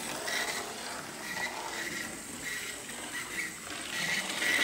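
Vintage Playart model locomotive running on the track after its wheels were clamped straight. Its motor and gears make a rattling mechanical sound, with short high squeaks repeating irregularly about twice a second.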